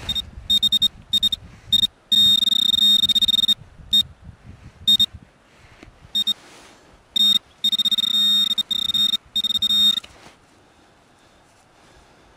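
Handheld metal-detector pinpointer probe sounding as it is pushed through loose dug soil. It gives a few short beeps, then a steady high tone lasting over a second, a single short beep, and another steady tone for about three seconds that stops near the end. The tone signals metal in the soil pile.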